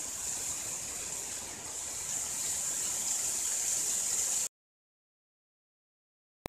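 Heavy rain pelting a dome tent, heard from inside as a steady hiss that cuts off abruptly about four and a half seconds in.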